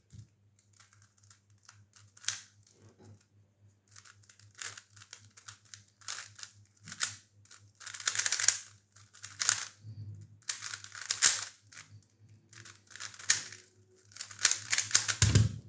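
DaYan GuHong V4M 3x3 speedcube turned fast in a timed solve: the plastic layers click and clack in quick flurries with short pauses between them, over a faint steady hum.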